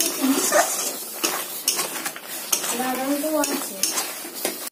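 Metal spatula scraping and clinking against a metal karai as a thick, crumbly mixture is stirred on the stove, in quick irregular strokes. A voice is heard briefly in the background about three seconds in.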